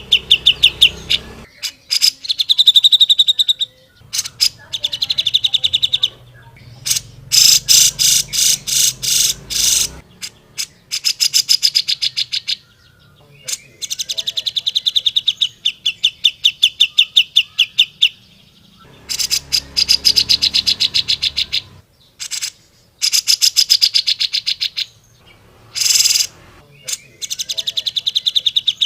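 Cucak jenggot (grey-cheeked bulbul) singing: loud, fast trills of repeated high notes, phrase after phrase of a few seconds each with short pauses between.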